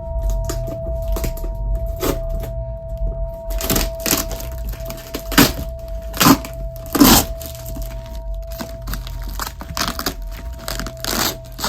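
A run of irregular sharp clicks and knocks, with three louder cracks near the middle, over a steady low hum and a held tone.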